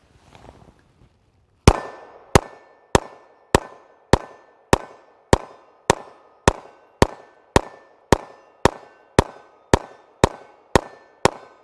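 Caracal EF 9mm pistol firing a full magazine of 124-grain ammunition in slow, steady fire: about eighteen shots a little over half a second apart, starting a couple of seconds in, each with a brief ring-off.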